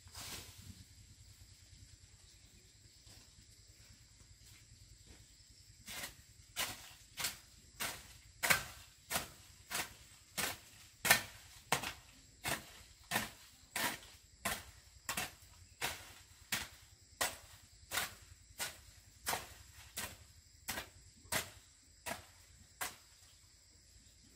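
A hoe chopping into the soil in a steady rhythm, about three strikes every two seconds. The strikes start about six seconds in and stop near the end.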